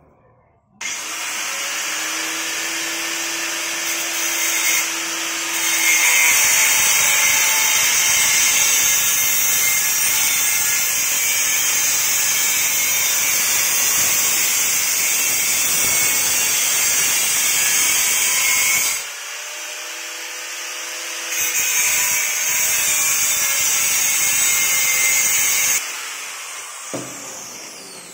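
Handheld angle grinder with a cut-off disc starting up about a second in and cutting through a stainless steel tube held in a vise: a loud, steady grinding that eases off briefly about two-thirds through, then bites again. Near the end it is switched off and the disc spins down with a falling whine.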